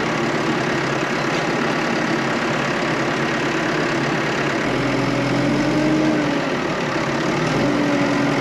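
Vehicle engine running steadily, its pitch rising slightly for a moment about five seconds in and again near the end.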